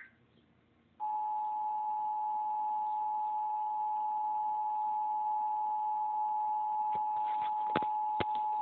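Emergency Alert System attention signal: a loud, steady two-tone alert tone starting about a second in and holding for about eight seconds, announcing the start of an Illinois EAS test. A few sharp clicks sound near the end.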